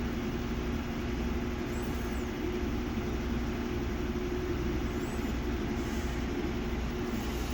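Samsung WA50R5200AW top-load washing machine spinning with a small, unbalanced one-garment load: a steady low hum and a constant tone over an even rushing noise, with no change in speed.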